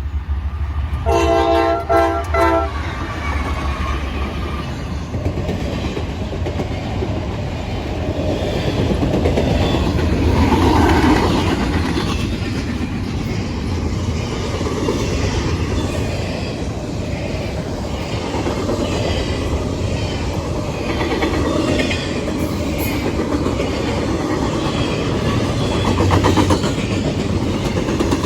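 Norfolk Southern train's locomotive horn sounding a few short chorded blasts about a second in, then the train rolling past with a steady rumble and wheels clacking over the rail joints.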